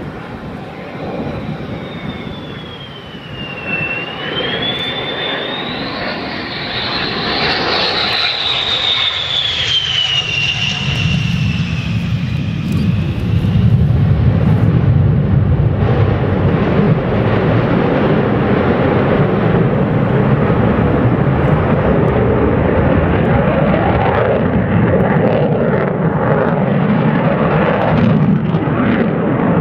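Twin Pratt & Whitney TF30 turbofans of an RAAF F-111 in a pass: a high engine whine slides down, up and down again in pitch over the first dozen seconds. From about halfway on, a loud, steady, low jet noise takes over.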